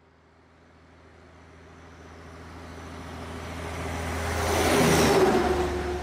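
A heavy vehicle's engine and rumble swelling steadily from silence, loudest about five seconds in, then settling into a steady rumble with a droning tone.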